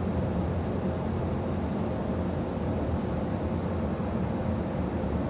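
Steady cockpit noise of an Airbus A220-300 on final approach: a constant rush of airflow and engine noise with a low hum, unchanging throughout.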